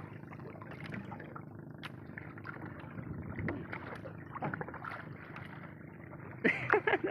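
Water lapping and splashing lightly against a small fishing boat, with faint scattered knocks and ticks.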